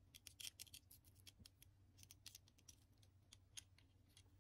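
Faint, irregular light clicks and ticks from handling a small 00/H0 model locomotive, over a faint steady hum.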